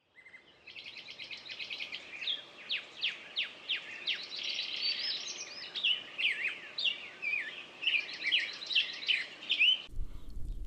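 Songbirds singing in chorus, many fast overlapping chirps and quick falling whistles, cutting off suddenly near the end.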